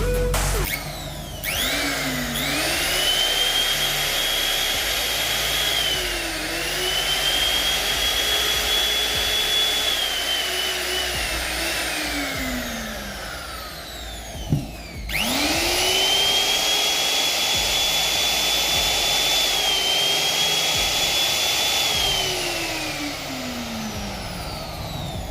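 NRT Pro 3601 HD electric wood router motor switched on and spinning up to a high, steady whine, its pitch sagging briefly once, then winding down after switch-off. A sharp knock comes just before it starts again about halfway through and runs through the same cycle, winding down near the end.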